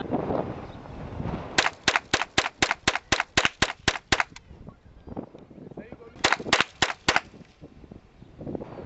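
GSG AK-47-style .22 LR rifle firing two strings of rapid shots: about a dozen sharp cracks at roughly five a second, a pause of about two seconds, then a shorter string of five or six.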